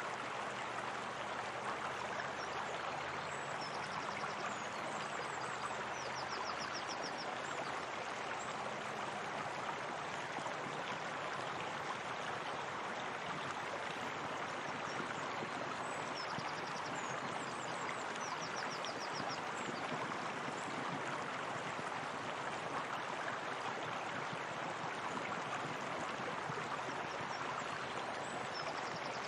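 Steady flowing water, a hot-spring stream spilling over a small waterfall. A few faint, short, high-pitched chirping trills come and go over it.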